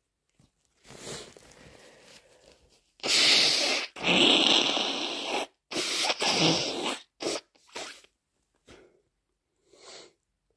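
A person with a snotty head cold blowing their nose hard: three long, loud blows a few seconds in, then a few short ones.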